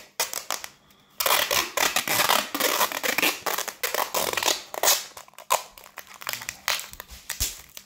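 Adhesive tape ripping as it is pulled off its roll and wound around the ankle of a cycling overshoe, with rustling of plastic sheeting beneath it. A few short scrapes, a brief pause, then a nearly continuous stretch of tearing from about a second in.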